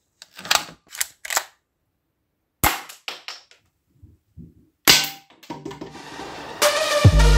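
Metal Colt 1911 replica toy pistol that fires small metal balls, being worked and test-fired: a series of short, sharp mechanical clicks and snaps, with two louder shots about two and a half and five seconds in. Music comes back in near the end.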